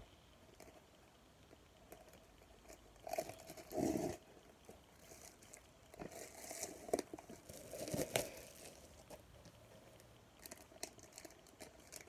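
Trading-card packaging being crinkled and torn open by hand, in irregular bursts that are loudest a few seconds in.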